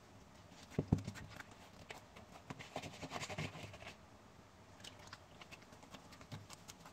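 Faint, scattered soft taps and squelches of hands kneading chapati dough, with a sharper knock about a second in.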